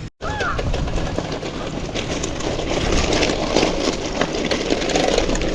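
Bicycle riding over a trail: a steady rattle and rumble with many small irregular clicks.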